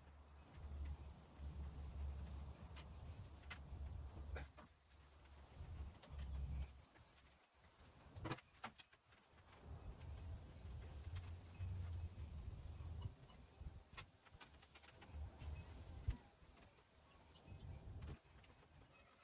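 A cricket chirping steadily, about three chirps a second, with a break partway through. Under it come low handling thuds and a few sharp clicks as sheet-metal screws are tightened with a Phillips screwdriver into a box fan's front grille.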